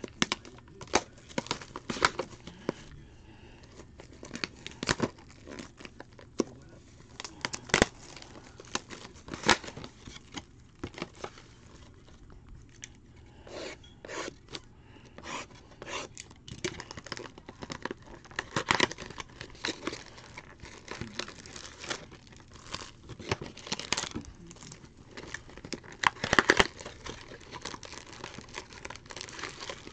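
Clear plastic shrink-wrap being torn and crinkled off cardboard trading-card hobby boxes, and a box's cardboard flap pried open: an irregular string of sharp rips, crackles and taps, with several louder ones near the end.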